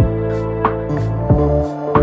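Background music: soft instrumental with sustained keyboard notes and a steady, regular beat.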